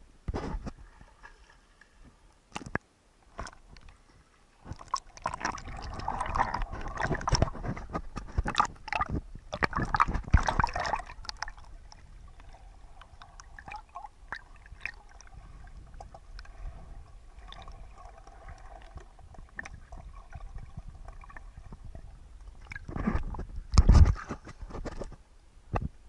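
Seawater around a camera in a waterproof housing, heard underwater: muffled gurgling and sloshing with clicks and knocks, louder between about five and eleven seconds. A louder burst of splashing comes near the end as the camera returns to the surface.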